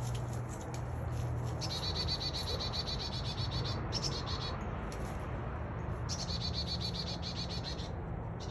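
Chickadee calling in rapid trains of repeated high, buzzy notes, in bursts of one to two seconds, four times, over a steady low hum.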